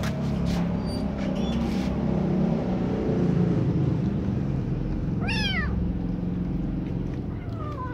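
A kitten meows twice, each a short call falling in pitch, about five seconds in and again near the end. A steady low rumble runs underneath, with a few clicks in the first two seconds.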